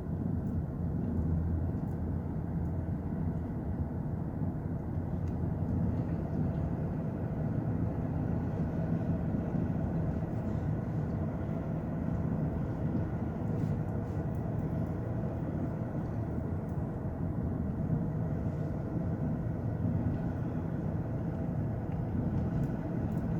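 2009 Lexus LS460 driving over rough road: a steady low rumble of road and tyre noise, with a faint, intermittent rattle (달그락) from the driver's-side front suspension. The rattle resembles a worn stabilizer link, but the mechanic thinks the most likely cause is play inside the front air shock absorber.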